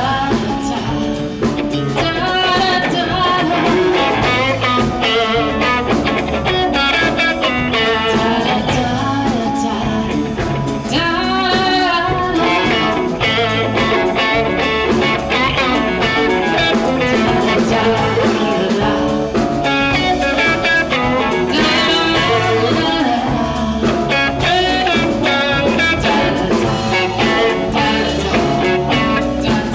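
Live band playing: electric guitar lead lines over electric bass and drum kit.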